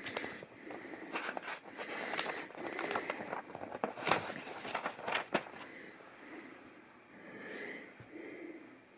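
Plastic LEGO pieces clicking and scraping as they are handled and pressed together, with a few sharper clicks about four and five seconds in.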